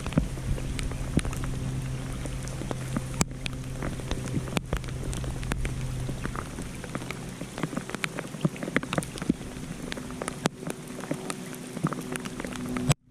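Rain falling, an even patter dotted with many irregular sharp drop ticks over a faint low steady hum; the sound cuts off abruptly near the end.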